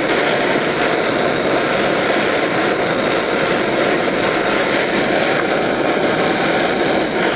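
Handheld gas torch burning with a steady rushing hiss while its flame heats a snowmobile clutch's spider nut to soften the thread-locker.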